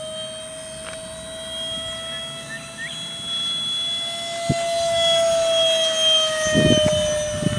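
High whine of a model F-15 jet's 64 mm five-blade electric ducted fan, driven by a 4500 kV outrunner motor, as the jet flies by. The pitch rises a little and then falls away, with a sharp click about halfway through and bursts of low rumble near the end.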